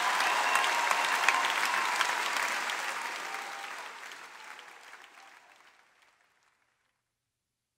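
Large theatre audience applauding, a dense patter of clapping that fades out from about two seconds in and is gone by about six seconds.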